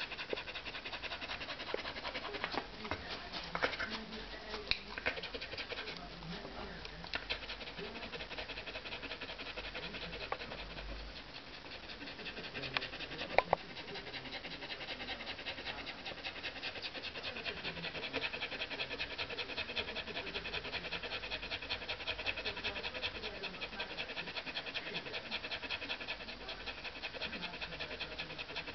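Samoyed panting fast and steadily with her tongue out: she is hot after digging in the garden. A few sharp clicks or knocks come in the first half.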